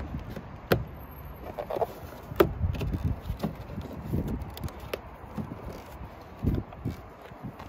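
Handling noises of plastic and rubber parts on a car door: a wing mirror being fitted against the door and the rubber window seal pulled back by a gloved hand. Scattered light knocks and rubs, with a sharp click under a second in and a louder one about two and a half seconds in, over a low wind rumble on the microphone.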